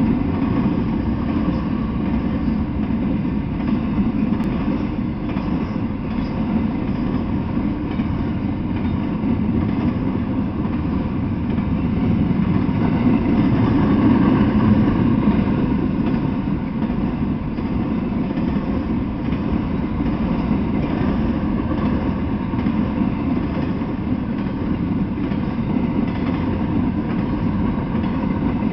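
Intermodal freight train cars rolling past on the rails: a steady rumble of steel wheels on track that swells a little about halfway through.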